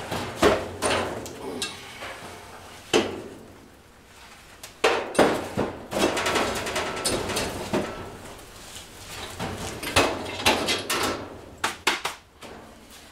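Irregular metal clanks and knocks of a wood stove's door and firebox as a cast-iron casting is handled in it: one sharp knock about three seconds in, then a busier run of clanking from about five seconds on.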